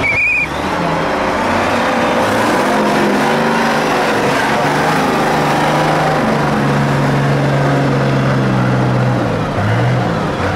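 Off-road trial truck's diesel engine revving, its pitch climbing and dropping, held high for a few seconds before falling back near the end, with a brief high tone at the very start.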